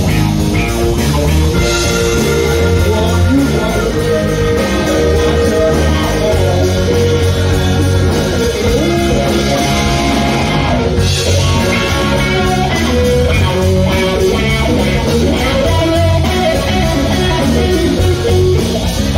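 Live rock band playing: electric guitar and bass guitar over a drum kit, continuous and loud.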